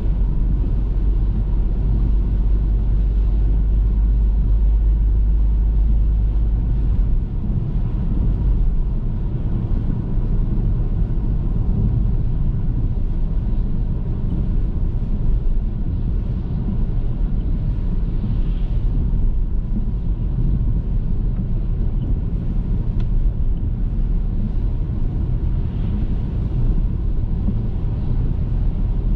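A car being driven: a steady low rumble of engine and tyre noise on the road.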